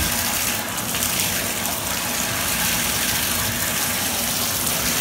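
Water running steadily from a bathtub spout into the tub, a baby's hand held in the stream.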